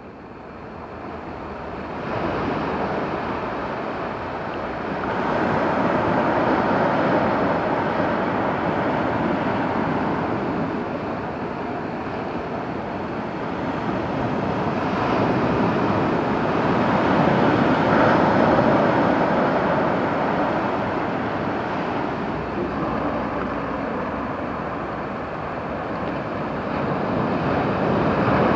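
Sea surf washing onto the shore: a steady rushing of waves that fades in over the first two seconds, then swells and ebbs slowly every several seconds.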